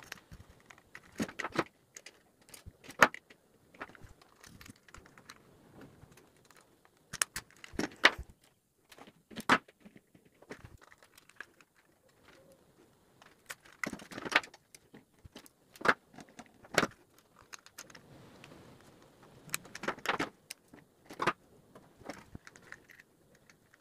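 Irregular small metallic clicks, taps and rattles of a screwdriver working the brass terminal screws of socket outlets while green earth wires are looped through and fastened, with a few louder knocks.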